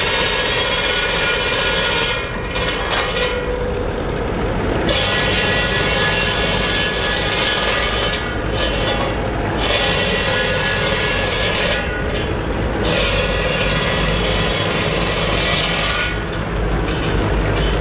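Tractor-powered cordwood circular saw bench driven by a Ferguson TE20, its blade sawing through logs for firewood over the tractor's steady engine. The cutting noise comes in stretches of a few seconds, broken four times by brief lulls as the blade runs free between cuts.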